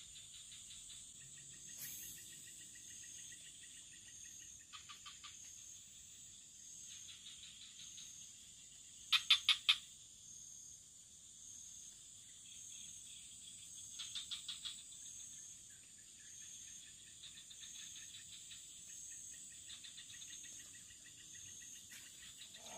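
Frogs calling in short trains of rapid clicking pulses every few seconds, the loudest about nine seconds in, over a steady high-pitched drone of insects.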